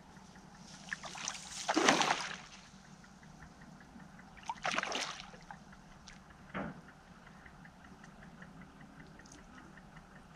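A hooked carp splashing at the water's surface as it is played on a float rod: a loud splash about two seconds in, a second one about five seconds in, and a short slap shortly after.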